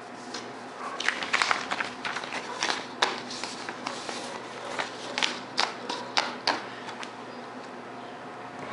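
Rubik's cube layers being twisted by hand through a sequence of turns: an irregular run of plastic clicks and short scrapes that stops after about six and a half seconds.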